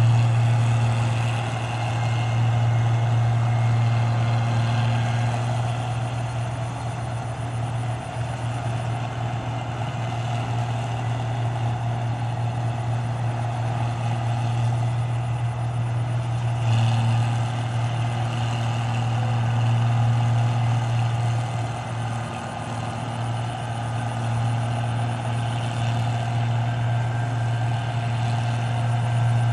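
Rice combine harvester running steadily as it cuts and threshes paddy: a steady, unbroken low engine hum with a faint higher whine from the machinery.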